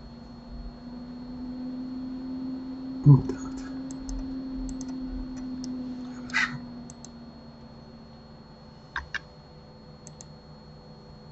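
Computer mouse and keyboard clicks, with a sharp double click about nine seconds in. A short low thump about three seconds in is the loudest sound, over a faint steady hum.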